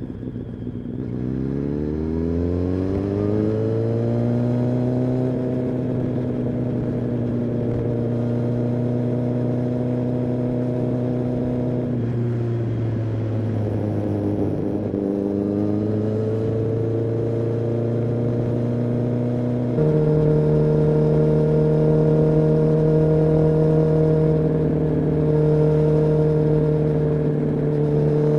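Kawasaki ZX-10R inline-four engine and exhaust under way. The revs climb over the first few seconds, then hold steady. About halfway through they dip and recover. About two-thirds through they jump to a higher pitch and the sound gets louder.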